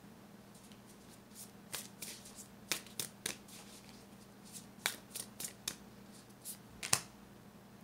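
Tarot cards being handled: a dozen or so sharp, irregularly spaced snaps and flicks of card stock.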